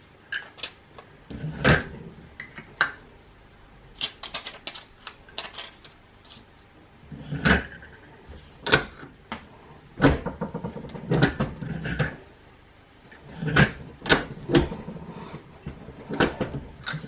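Irregular sharp clicks and clunks of a Vevor button press and its metal badge parts being handled and worked, with quiet gaps between the knocks.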